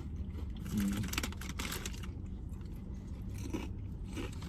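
Crisps being crunched and chewed close to the microphone, the crunching heaviest in the first half, over a low steady hum.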